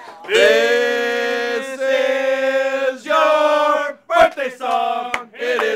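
Men's voices singing together a cappella: three long held notes over the first four seconds, then shorter sung notes.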